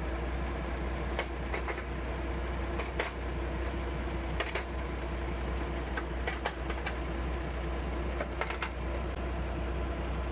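Boom truck's engine running steadily with a low hum and a constant droning tone, with scattered sharp clicks and knocks over it.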